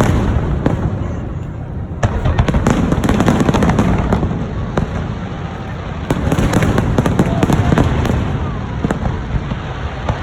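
Fireworks display: many rapid, overlapping bursts and crackles over deep booms, with fresh volleys swelling about two seconds in and again around six seconds.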